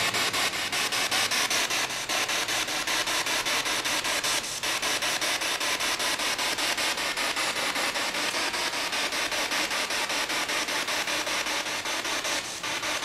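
SB7 spirit box sweeping through radio stations: a steady hiss of static chopped into rapid, even pulses.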